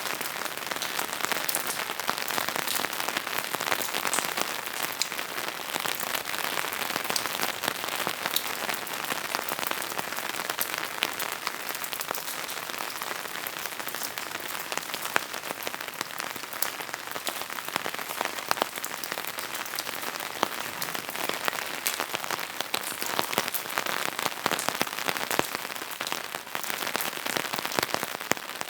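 Steady rain falling and pattering on surfaces, a dense hiss thick with individual drop strikes.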